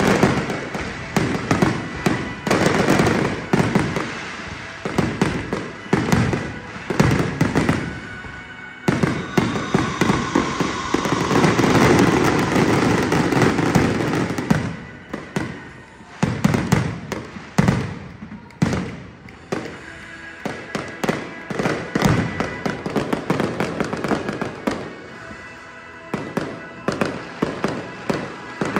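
Aerial fireworks display: a fast series of shell bursts and bangs, building to a dense continuous crackling barrage about ten seconds in, then bursts coming more spaced out toward the end.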